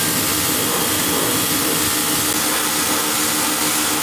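Electric pressure washer running steadily, its fan-tip nozzle spraying water onto the fins of a tumble dryer's heat exchanger: a steady hiss of spray over the pump motor's hum.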